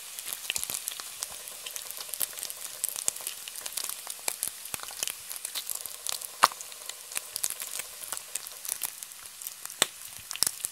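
Bacon sizzling in a frying pan: a steady hiss of hot fat with frequent sharp pops and crackles, with a louder pop about six seconds in and another near the end.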